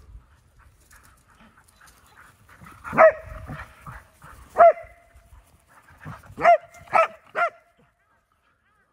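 Dog barking during chase play: five sharp barks, one about three seconds in, one a second and a half later, then three in quick succession near the end.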